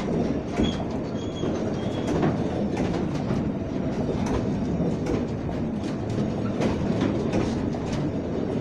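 Freight wagons of a slow-moving train rolling past close by: a steady rumble of steel wheels on rail with irregular clicks and knocks over the rail joints. A few brief, faint high squeaks come in the first two seconds or so.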